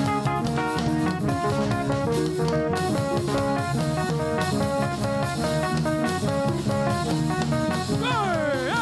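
Upbeat praise band music: quick repeated guitar notes over a drum kit, with no singing until a voice slides up and down in pitch near the end.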